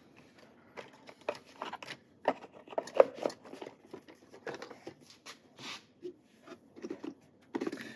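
Small objects being handled and rummaged through: irregular light clicks, taps and rustling, with one sharper click about three seconds in.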